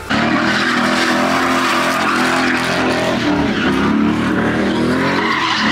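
Car engine held at high revs, its pitch rising and falling, while the tyres squeal and spin through donuts.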